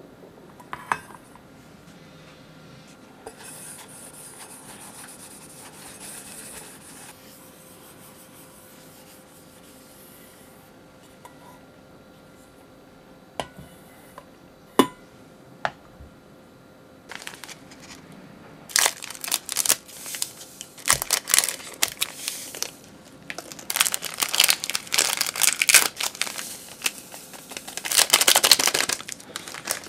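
Small plastic gelatin sachets being torn open and crinkled in the hands, in dense crackly bursts through the second half and loudest near the end, as the powder is shaken out into a glass measuring cup. Before that it is fairly quiet, with a couple of light knocks as stainless steel mixing bowls are handled.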